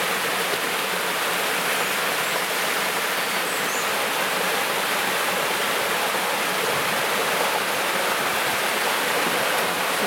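Mountain stream rushing and cascading over rocks: a steady, unbroken rush of water.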